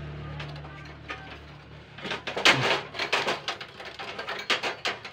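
Irregular metallic clicks, knocks and rattles of thin sheet-steel stove parts as a gas stove's burner bracket is pushed and worked into its frame, a busy run of them starting about two seconds in. A low steady hum sits under the first two seconds.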